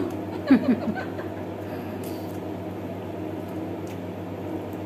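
A steady low electrical hum, with a brief snatch of a voice about half a second in.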